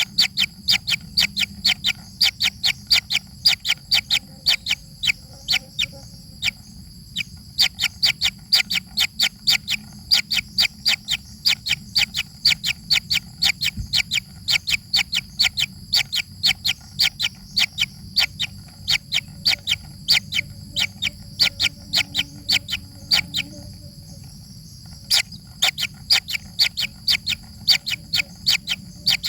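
Baby birds chirping in a fast, even series of short sharp calls, about four a second, pausing briefly near the end: the begging calls of chicks at feeding time.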